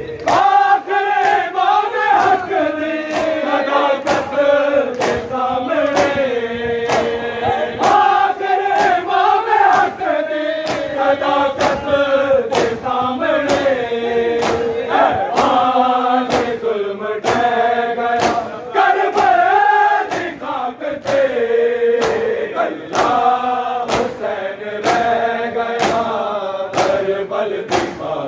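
Men's voices reciting a Punjabi noha (Shia lament) in unison, sung in long held lines. It is kept in time by a steady beat of matam, open hands slapping bare chests about every three quarters of a second.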